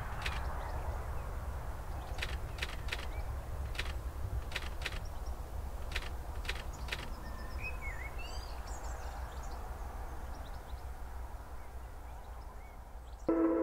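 Outdoor dawn ambience: a steady low rumble with many short bird chirps and calls scattered across it. Ambient music with a sustained chord comes in just at the end.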